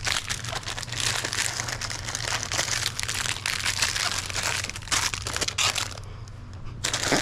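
Plastic snack wrappers crinkling as packaged items are handled and stacked, with a short lull about six seconds in.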